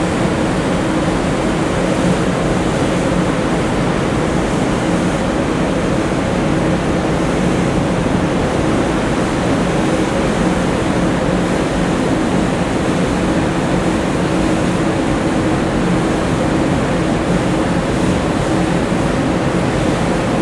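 Steady rush of churning water and wind at sea, under a low, even engine drone from ships underway.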